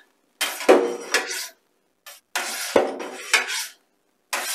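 Metal curd knife being drawn through the curd in a stainless-steel cheese vat, scraping against the vat in three passes of about a second each with short pauses between.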